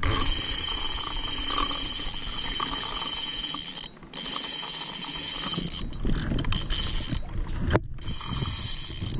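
Spinning reel's drag buzzing as a hooked bull shark runs and pulls line off against it. The steady high buzz breaks off briefly twice, about four seconds in and again near eight seconds.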